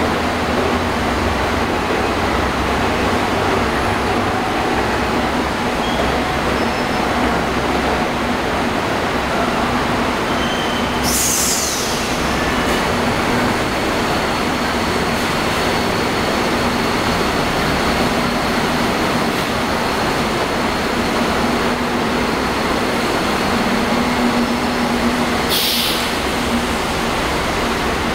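Kuala Lumpur Monorail train running at a station platform: a steady running rumble with a constant hum underneath. Two short high hisses come through, about eleven seconds in and again near the end.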